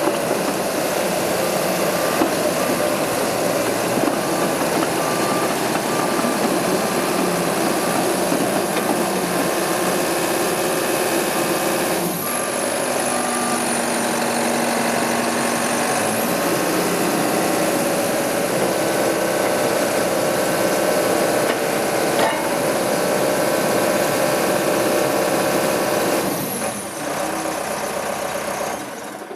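Case 650K crawler dozer's four-cylinder turbo diesel running steadily, with a back-up alarm beeping at an even pace through the first part. The sound drops away near the end.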